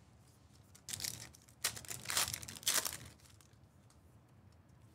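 Crinkling and tearing of a trading-card pack's foil wrapper, in about four short bursts during the first three seconds.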